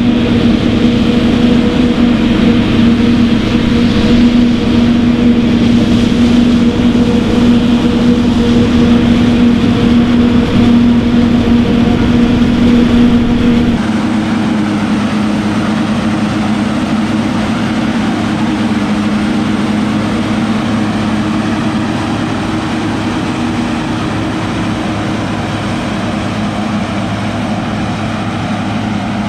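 Heavy farm machinery engines running steadily during maize harvesting. About 14 seconds in, the sound changes abruptly to a slightly quieter, differently pitched engine.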